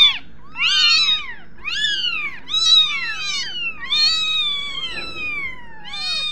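Young kittens mewing repeatedly: about six high-pitched calls, each rising then falling in pitch. Near the middle, two calls from different kittens overlap, and about four seconds in comes one longer, drawn-out mew.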